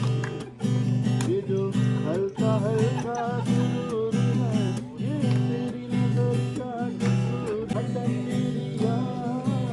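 Upbeat background music: strummed chords on a plucked string instrument in a steady rhythm, with a melody line gliding over them.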